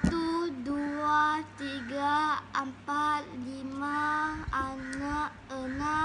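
A young boy counting aloud in Malay (satu, dua, tiga…) in a sing-song chant, each number drawn out with a rising or falling pitch and short breaks between them.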